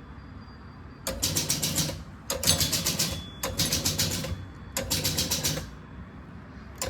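Electromechanical scoring of a 1976 Gottlieb Volley pinball machine: four bursts of rapid clicking, each under a second, as relays and the score motor step the score reels to add points.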